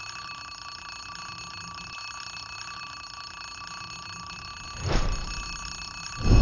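Alarm clock ringing steadily, with two dull thuds about five and six seconds in.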